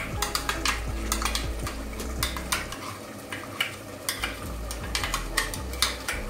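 A spoon clinking and scraping against a cooking pot in quick, irregular strokes, stirring cashew nut and coconut paste into a curry gravy, with a faint sizzle underneath.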